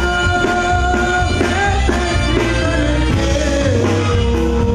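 A live Mexican grupo band playing a song, with button accordion, saxophone, electric bass, drums and guitar, and a male singer's vocal. A steady bass and drum beat runs under held notes, then a bending melody line about a second in.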